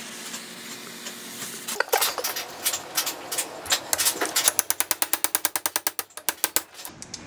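Handheld torch hissing steadily on the cylinder head, then a ratchet wrench clicking on a fastener on the aluminum head. The clicks come irregularly at first, then in a fast even run of about eight a second, and stop near the end.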